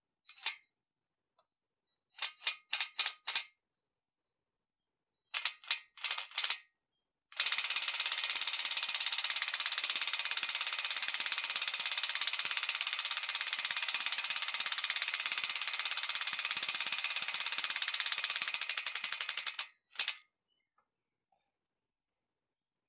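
Impact wrench running water jacket plugs into an LS engine block to seat them: a few short trigger pulls, then about twelve seconds of rapid hammering that stops abruptly, and one more brief burst.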